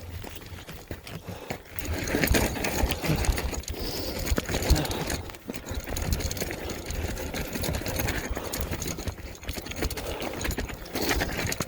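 Lectric XP Lite e-bike riding up a gravel climb: rapid, irregular rattling and crunching from the bike on rough gravel, with low wind rumble.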